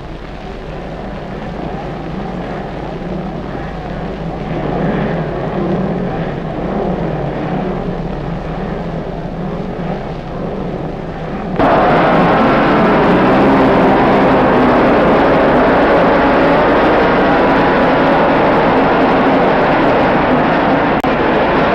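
Engines of a pack of racing motorcycles, quieter at first, then suddenly much louder about halfway through as the field races off.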